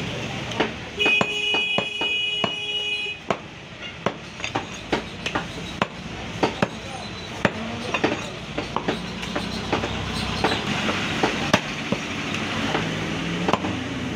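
A butcher's knife knocking on a wooden log chopping block as beef is cut and trimmed, in quick, irregular strikes. A steady pitched tone sounds for about two seconds near the start, and voices murmur behind.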